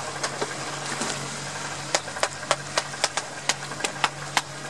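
A boat's engine idling with a steady low hum. From about two seconds in, a string of sharp clicks or knocks, roughly three a second, sounds over it.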